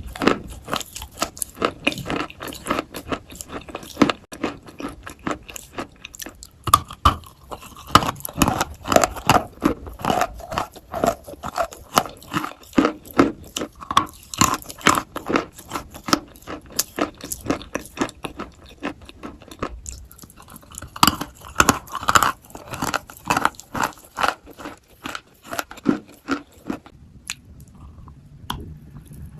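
Mouthfuls of wet white chalk being bitten and chewed close to the microphone: a dense run of sharp, wet crunches, several a second, that dies away shortly before the end.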